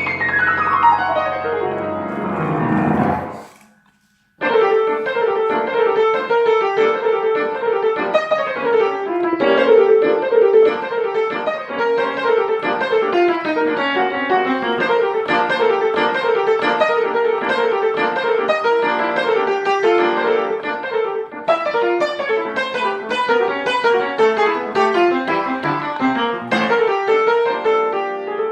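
Piano music: a falling run of notes, a brief break about four seconds in, then fast continuous playing.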